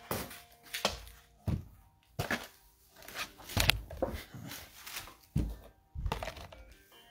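Cardboard trading-card blaster boxes being handled and set down on a table: a string of knocks and scuffs, roughly one a second.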